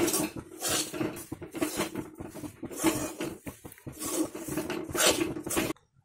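Metal spoon scraping and stirring fast in an aluminium kadai, working powdered puffed rice into sticky melted jaggery, with rapid rasping strokes against the pan. It cuts off abruptly just before the end.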